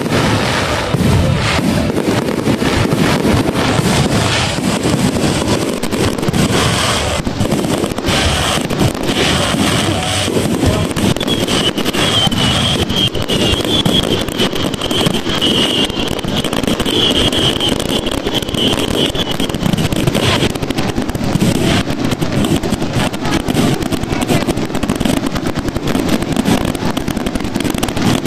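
Fireworks display: a continuous barrage of bangs and crackling bursts, with a high wavering whistle running for several seconds in the middle.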